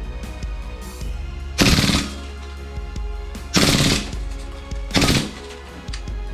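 Toy pistol firing three short rapid-fire bursts, each well under half a second, the last one the shortest, over background music.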